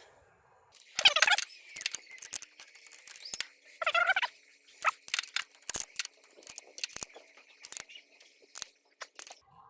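Metal clicks throughout and two short squeaks, about a second in and about four seconds in, as a nut is run down and tightened onto the kill switch's terminal bolt on a car battery.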